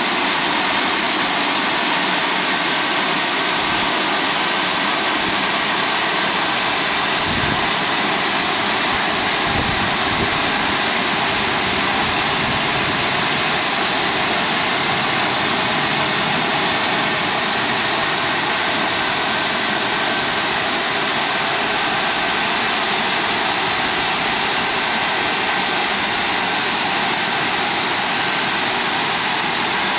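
CF-340 rollover car wash machine running over a car, its brushes turning: a steady, loud rushing noise.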